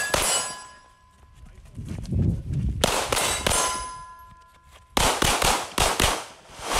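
Pistol shots: one near the start and another about three seconds in, each followed by a lingering metallic ring, then a quick string of about five shots near the end.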